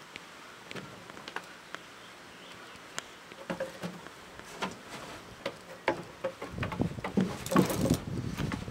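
A goat and a dog moving about on wooden deck boards: scattered light clicks and taps, then a louder stretch of knocking and rustling near the end.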